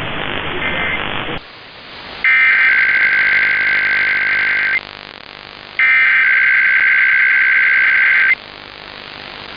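Emergency Alert System SAME header: two loud bursts of the screeching two-tone digital data signal, each about two and a half seconds long and about a second apart, opening a required weekly test. Before them a hissy stretch with a short data chirp cuts off abruptly about a second in.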